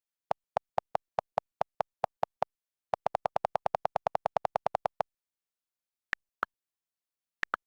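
A series of short, sharp clicks with silence between them: a steady run of about five a second, then a faster run of about ten a second for two seconds, then a few scattered clicks.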